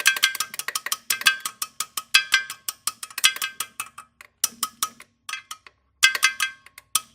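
Quick runs of light metal-on-metal taps with a ringing tone, coming in groups with short pauses: a tool tapping a transmission part to work it into place.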